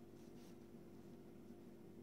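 Near silence: a steady low hum, with a couple of faint soft rustles in the first half-second as yarn is drawn through a knitted seam.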